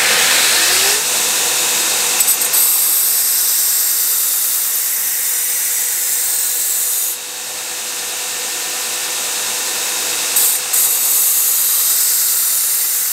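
Belt grinder running a partially worn 120-grit belt against the thin steel edge of a cleaver, grinding out edge chips: a steady loud hiss of abrasive on steel over the machine's hum. The hum rises in pitch in the first second, then holds steady. The grinding eases off about seven seconds in and comes back hard about ten seconds in.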